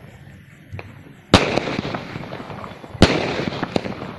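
Aerial fireworks bursting: two loud bangs, one about a second and a third in and another about three seconds in, each followed by a fading trail of smaller crackling pops.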